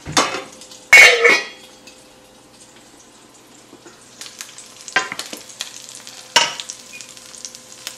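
A metal pan lid clanks twice, the second time about a second in, loudest and ringing on. After that a salmon steak sizzles quietly as it fries in an oiled pan, with two lighter knocks of pan or utensil later on.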